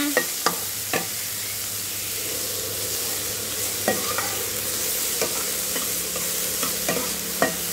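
Pork belly sizzling in its own rendered fat in a nonstick frying pan over a high gas flame, with a metal spatula scraping and knocking against the pan several times as the meat is stirred.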